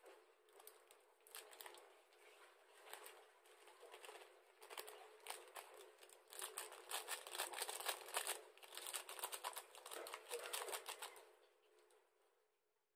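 Thin plastic sachet crinkling as it is squeezed and worked by hand, a dense run of quick crackles that grows louder about halfway through, then dies away near the end.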